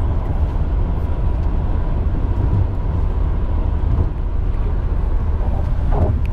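Steady low rumble of a vehicle in motion, with a faint steady hum above it.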